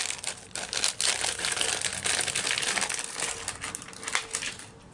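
Clear plastic bag crinkling and rustling as hands rummage in it; the crinkling dies away near the end.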